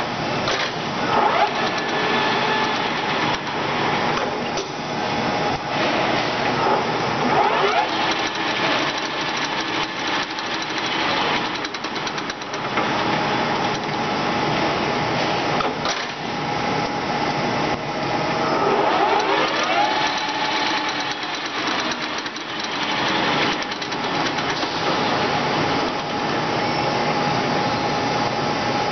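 Acer 24160G engine lathe running under its 15 HP motor, the geared headstock turning the four-jaw chuck with a steady whine. The pitch slides up and down a few times, near the start, around a quarter of the way in and about two-thirds through.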